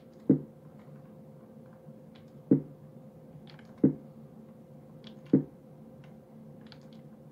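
Sorizava stenography keyboard being typed on in chords: four loud clacks a second or two apart as several keys are struck together, with lighter key clicks between them. A faint steady hum sits underneath.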